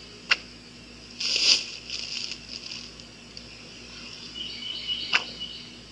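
Homemade wooden bow drawn and its string let go, giving two sharp snaps about five seconds apart, with a brief rustle about a second in. A faint high insect buzz comes and goes underneath.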